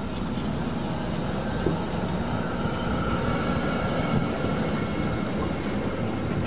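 Freight train of silo wagons rolling past close by: a steady rumble of steel wheels on the rails, with a faint wheel squeal partway through.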